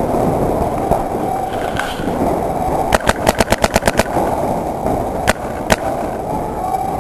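Paintball marker firing a rapid string of about nine shots in a second, about three seconds in, then two single shots half a second apart, over a steady low background rumble.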